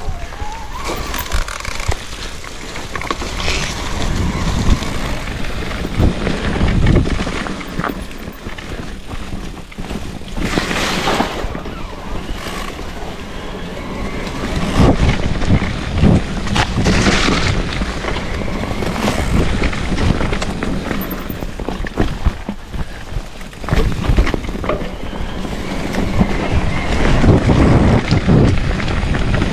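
Wind rushing over an action camera's microphone on a moving Cube HPC SL mountain bike, with tyre noise and frequent short knocks and rattles from the bike, in uneven gusts.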